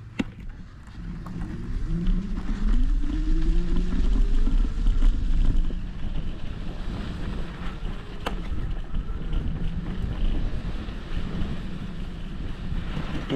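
Electric scooter's motor whine rising in pitch as it accelerates, over wind buffeting a handlebar-mounted action camera's microphone and a low rumble from the ride. Two sharp clicks, one right at the start and one about eight seconds in.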